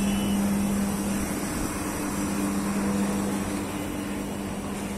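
VRV air-conditioner outdoor unit running, with a steady hum and the rush of its condenser fan, while the system charges refrigerant automatically.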